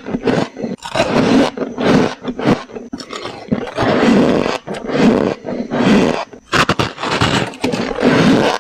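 Freezer frost being bitten and chewed close to a clip-on microphone: a run of soft, repeated crunches, roughly one or two a second.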